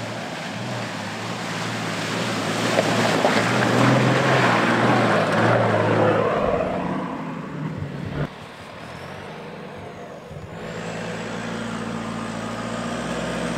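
Nissan Patrol 4x4 driving through a river, its engine labouring under load over the loud rushing splash of water thrown up by the wheels, building to a peak about four seconds in and then fading. Later another off-road vehicle's engine runs at a steady note.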